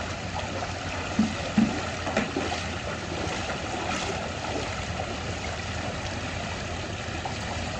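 Water running over a low concrete spillway and someone wading through shallow muddy water, steady and splashy, with two dull thumps a little over a second in.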